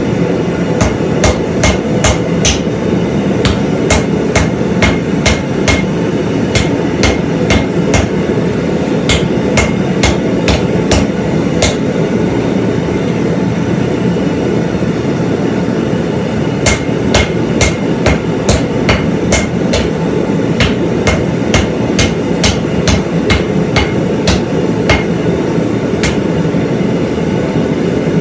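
Hammer blows on hot steel at an anvil, shaping a hot cut hardy, each with a short metallic ring. They come at about two a second in two runs, with a pause of a few seconds about halfway. Underneath runs the forge's steady roar.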